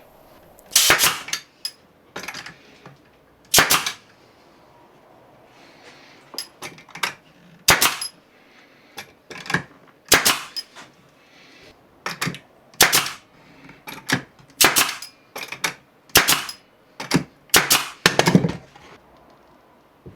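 Pneumatic pin nailer firing again and again into beech pieces, about twenty sharp cracks at irregular intervals, some coming in quick pairs.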